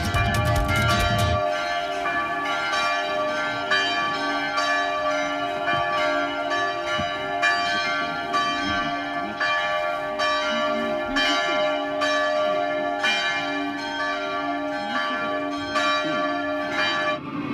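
Church bells ringing, struck again and again with their tones hanging on and overlapping; the ringing stops abruptly near the end.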